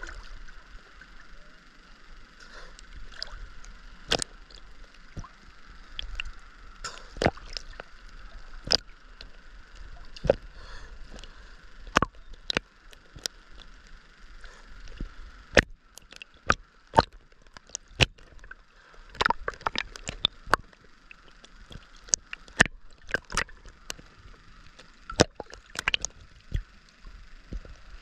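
Sea water sloshing and lapping against a camera held at the surface during a swim, with many irregular sharp slaps and clicks of water on the camera.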